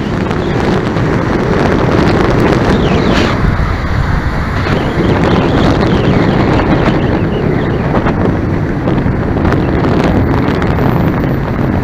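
Wind rushing over a helmet-mounted camera's microphone while cycling: a loud, steady rumble, with car traffic beneath it.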